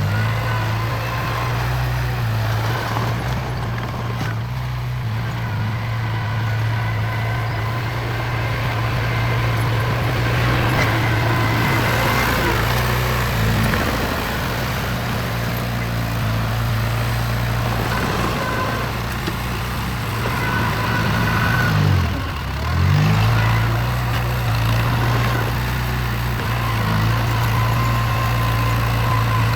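Heavy construction machine's diesel engine running steadily under work. About three-quarters of the way through, its pitch dips briefly and climbs back up.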